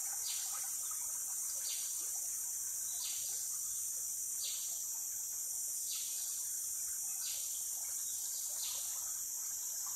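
Steady, high-pitched chorus of tropical forest insects such as crickets or cicadas. Over it, a short falling call repeats evenly about every second and a half.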